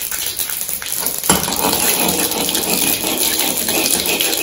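Mustard seeds and urad dal spluttering and crackling in hot oil for a tempering, a steady sizzle that gets louder about a second in.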